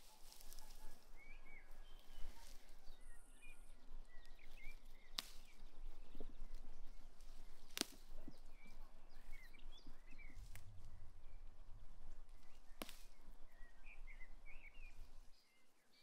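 Quiet meadow ambience: small birds chirping in short scattered calls, with a few sharp clicks and a low rumble in the second half.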